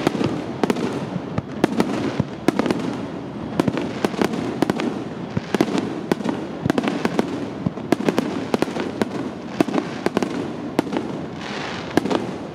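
Aerial fireworks bursting in quick succession: many sharp bangs and crackles overlapping on a continuous din of earlier bursts and their echoes.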